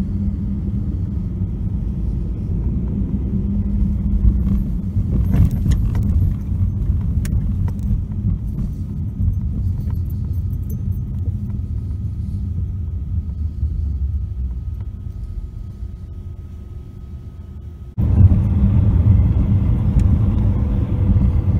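Car on the move, heard from inside the cabin: a steady low rumble of engine and road noise with a few light rattles about five seconds in. The rumble jumps louder suddenly about three-quarters of the way through.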